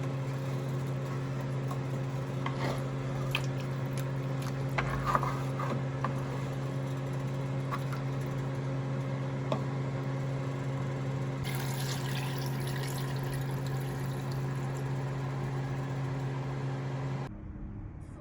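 A steady low electric hum with scattered clinks and taps. For several seconds in the second half, water runs with a hissing sound. Both cut off abruptly near the end.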